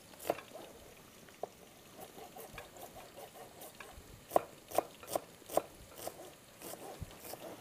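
Chef's knife chopping a red onion on a plastic cutting board: a series of sharp knocks of the blade on the board, a few scattered at first, then coming about two or three a second in the middle.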